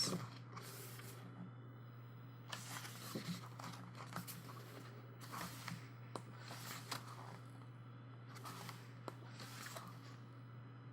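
Paper pages of an album photobook being handled and turned, with several soft, faint swishes of paper spaced a second or two apart, over a steady low electrical hum.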